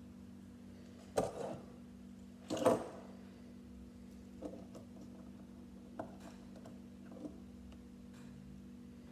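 Small Lego plastic pieces being handled and pressed together: two short rattles about a second and two and a half seconds in, then a few faint clicks, over a steady low hum.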